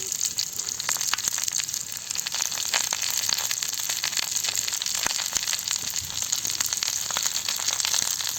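Oil sizzling and crackling on a hot dosa tawa under a banana-leaf parcel of chicken being pan-cooked: a steady hiss with many small pops throughout.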